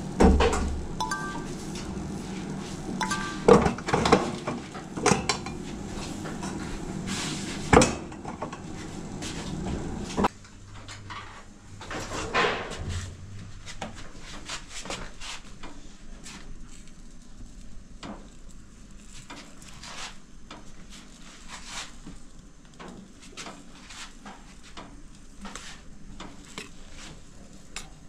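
Kitchen clatter of dishes, pots and utensils knocking and clinking, with several loud knocks and a few ringing clinks in the first eight seconds. About ten seconds in, the background drops suddenly and quieter scattered clinks go on.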